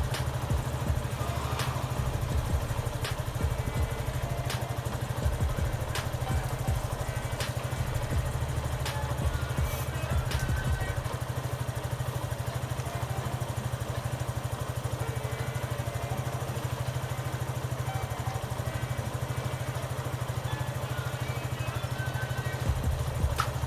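Suzuki Gixxer SF 155's single-cylinder engine idling steadily. A sharp light tick repeats about every second and a half through the first half.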